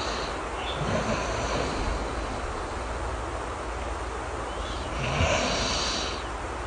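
A person snoring softly, slow breaths with one longer snore about five seconds in, over a steady hiss of rain.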